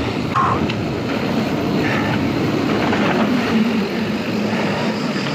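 Wind buffeting an action camera's microphone, mixed with the rumble of mountain-bike tyres rolling over rough ground, as a steady, loud rushing noise.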